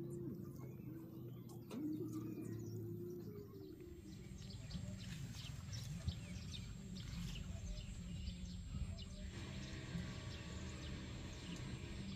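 Small birds chirping and twittering, starting about four seconds in, with many short high calls over a low outdoor rumble. A low steady hum comes before them.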